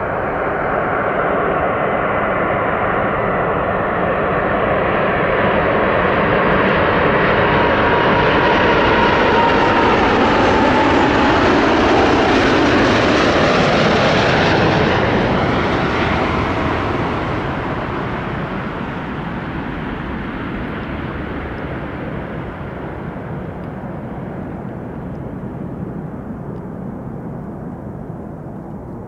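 Wide-body jet airliner's engines passing close by. The loud engine noise builds to a peak about halfway through, drops in pitch as the aircraft goes past, and then fades slowly.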